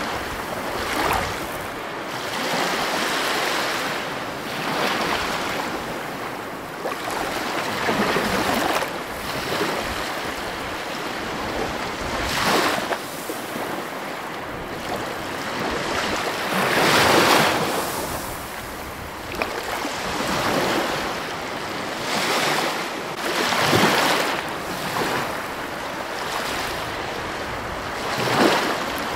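Ocean surf: waves surging and breaking in a continuous wash that swells and falls back every few seconds, the biggest surge a little past halfway.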